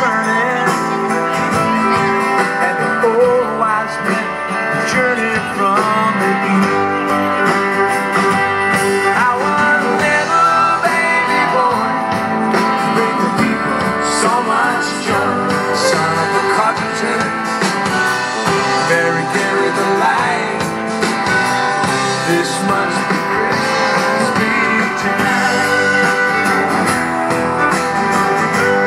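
Live band playing a song, with guitar, a drum kit and a lead singer.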